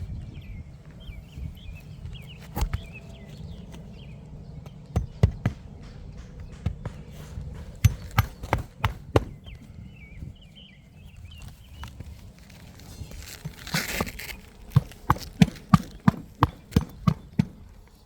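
Footsteps and knocks on an asphalt shingle roof, scattered at first, then an even run of steps about three a second near the end, with a short scraping rustle just before it.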